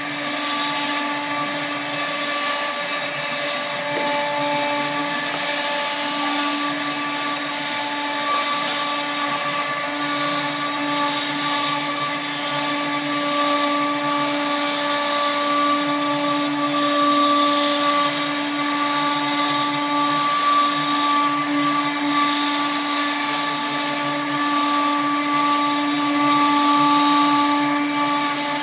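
CNC router spindle running steadily with a constant whine as it cuts grooves into a large sheet of wood board, with a hiss over the first three seconds.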